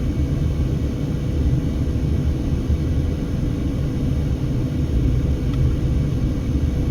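Steady low rumble of a car's road and wind noise, heard from inside the cabin while driving.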